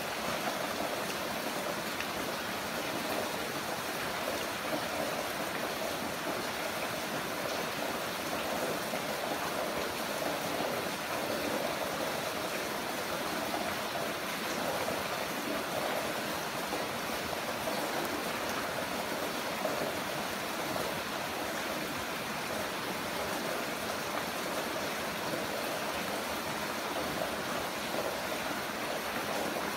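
Heavy rain falling, a steady, even hiss with no separate drops or thunder standing out.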